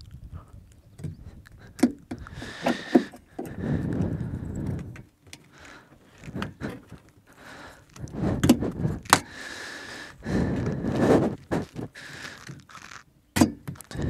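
A tire lever clicking and scraping against a bicycle rim as a tire is levered off a velomobile's front wheel by hand, with sharp clicks and bursts of the rubber tire rubbing and sliding along the rim.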